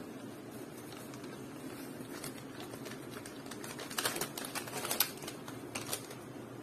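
Small package being handled and unwrapped by hand: a run of light clicks and crinkles, loudest about four and five seconds in, over a steady low background hum.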